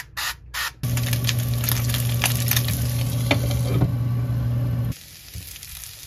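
An oil spray bottle is pumped a couple of times over a frying pan. Then food sizzles loudly in the pan under a glass lid, with a steady low hum, for about four seconds. This cuts off abruptly about five seconds in, leaving quieter scraping as rice is stirred in the pan.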